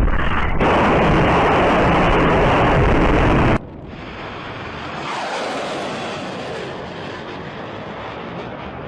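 Missile launching from a warship: a loud, steady rocket blast that cuts off suddenly about three and a half seconds in. It is followed by a quieter rushing noise that swells and then fades as the missile climbs away.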